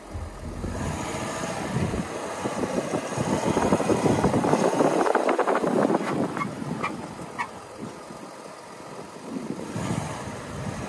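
Volkswagen Amarok V6 pickup driving on a snow-covered road: its Kumho WinterCraft Ice WS31 winter tyres rolling through the snow along with the engine running. The noise swells to its loudest in the middle and eases off later.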